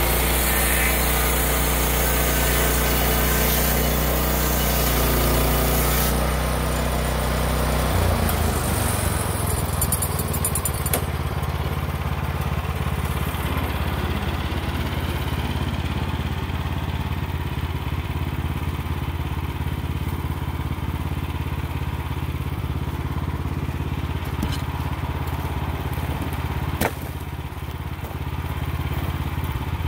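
Wood-Mizer LX25 band sawmill running, its band blade cutting along a rotten hemlock log as the saw head is pushed through. A strong high hiss over the engine drops away after about ten seconds, leaving a steadier, lower run. Near the end there is a sharp click and the sound briefly dips.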